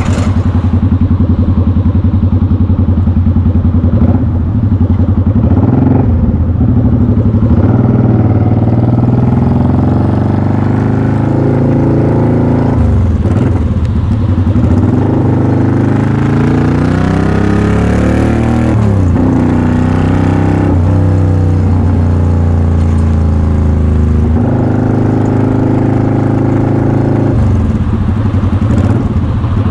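Motorcycle engine and exhaust heard from the rider's seat while riding on an expressway, the engine note rising and falling with the throttle through the middle and settling lower near the end, over a steady rush of wind and road noise.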